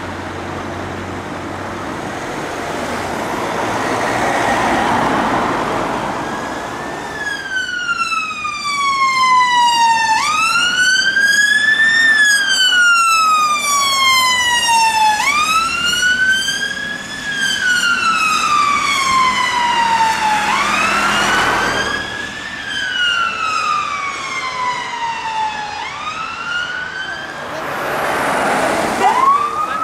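Road traffic and a passing vehicle, then from about seven seconds in an ambulance siren on a slow wail: long falling sweeps, each followed by a quicker rise, roughly one every five seconds. Engine and tyre noise swells as the vehicle goes by. Near the end another siren starts a rising sweep.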